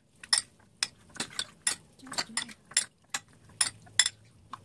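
Metal spoon and fork clinking against a ceramic bowl while chicken wings are mixed in their marinade: about a dozen sharp, irregular clinks.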